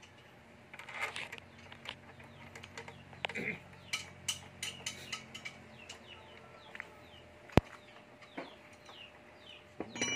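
Chickens clucking and chirping, with a run of short falling chirps through the second half. Small clicks of metal parts being handled on a small engine come in between, and one sharp click about seven and a half seconds in is the loudest sound.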